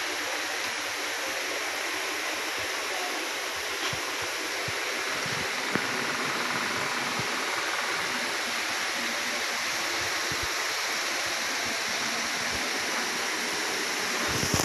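Steady rushing hiss of background noise, with a few faint clicks scattered through it.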